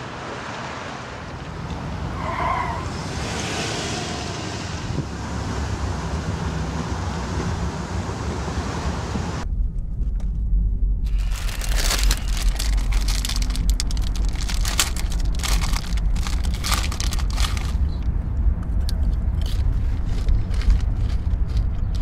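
Low engine and road rumble of a Buick LeSabre heard from inside the cabin, starting abruptly about halfway through, with a quick run of crackling, crinkling clicks over it. Before that, a softer even noise with a short tone near the start.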